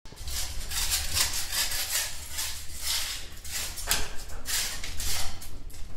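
Rhythmic rasping strokes, about two or three a second, like scraping or rubbing a surface by hand, over a steady low hum.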